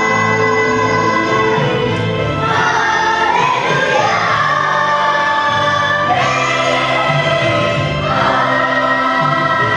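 Children's choir singing a song together over musical accompaniment, with long held notes that change every second or two.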